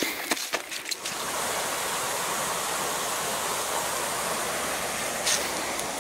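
A few footsteps, then a steady rush of running water starts about a second in and holds evenly.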